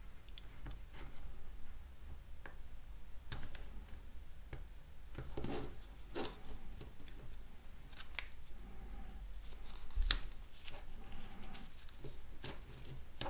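Craft knife blade cutting and scraping through red plastic sheathing on a metal lure weight: a run of short scratchy cuts and clicks, with one sharper click about ten seconds in.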